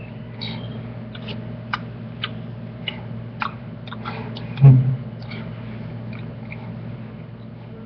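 Scattered small clicks and ticks over a steady low electrical hum, with one louder low thump a little under five seconds in.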